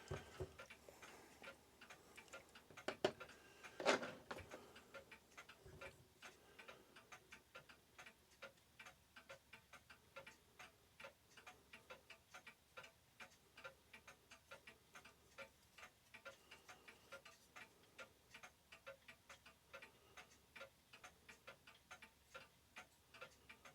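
Faint, steady ticking of a mechanical clock escapement, with two louder knocks about three and four seconds in.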